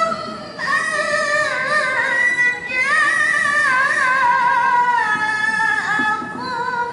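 A young woman reciting the Qur'an in the melodic tilawah style. She holds long notes that waver and slide up and down in ornamented turns, with a short breath about half a second in.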